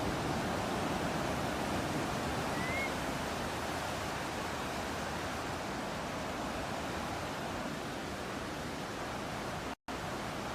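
Steady wash of ocean surf, with one short rising bird chirp about a quarter of the way in and a split-second gap to silence near the end.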